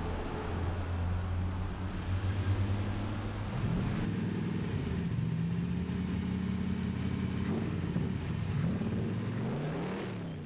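Car engine running with road noise, steady at first, then its pitch stepping and gliding up and down several times from about four seconds in.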